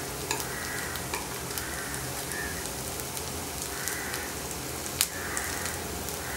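Noodle vadas sizzling in a little oil in a non-stick frying pan, with a few light clicks of a metal spoon against the pan as they are moved; the sharpest click comes about five seconds in.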